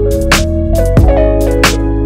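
Background music with a steady beat: a deep bass line and a drum hit about every two-thirds of a second.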